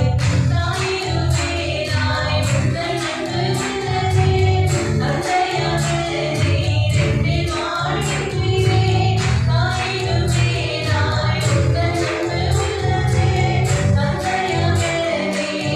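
Christian worship song: a group of voices singing together over instrumental accompaniment with a steady percussion beat.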